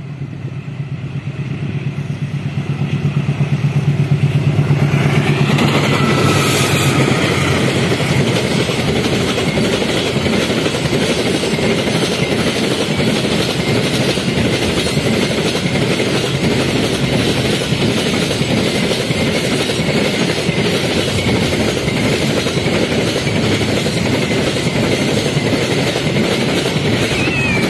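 Diesel locomotive of a long container freight train approaching and passing, its low engine drone growing louder to a peak about five seconds in. Then the string of container flatcars rolls by with a steady, dense wheel-on-rail clatter.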